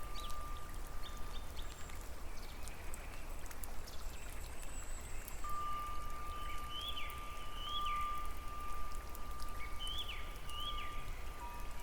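Rain and dripping water over a steady low rumble, with birds calling: two pairs of short rising-and-falling chirps in the middle and near the end, and a long steady high whistling tone.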